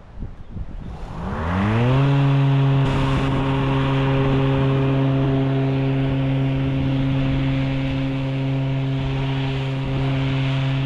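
Toro Revolution GrandStand battery-electric stand-on mower's electric motors winding up with a rising whine about a second and a half in, then holding a steady electric hum at one pitch.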